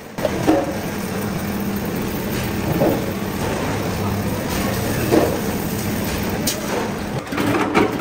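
Resistance seam welding machine running as its water-cooled copper wheel electrodes roll along a steel fuel tank's seam: a steady low electrical buzz under a hiss. There are a few knocks near the end.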